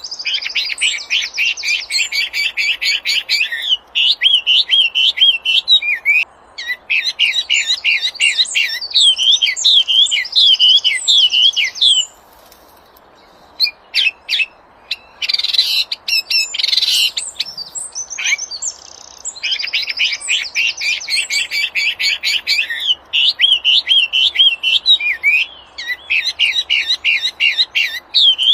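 Songbird known in Indonesia as the wambi singing in repeated phrases. Each phrase is a fast, dense trill followed by a run of quick up-and-down whistled notes. There is a short pause about halfway through, broken by a couple of harsher rasping notes.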